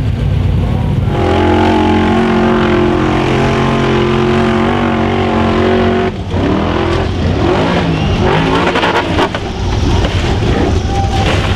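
Formula Offroad hill-climb buggy's engine at full throttle, holding a steady high-revving note for about five seconds. About six seconds in it dips briefly, then the revs swing up and down several times as the buggy crashes and rolls on the slope, ending in a rough, noisy run.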